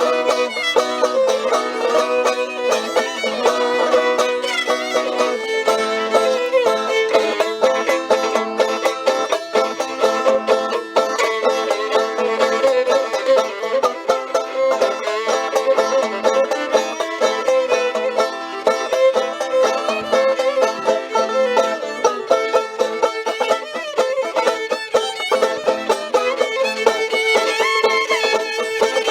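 Live acoustic string music: fiddle and banjo playing a tune together, with quick, busy notes and no break.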